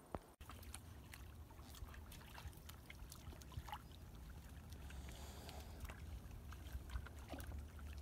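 Dogs wading through a shallow rocky creek: scattered small splashes and drips of water over a faint, steady low rumble.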